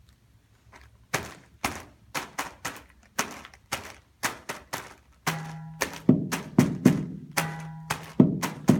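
Found-object percussion: sharp taps in a steady rhythm start about a second in, and around five seconds in a second layer of deeper, louder thuds, likely on a cardboard box, joins them along with a short humming tone that comes back about every two seconds, building an interlocking rhythm.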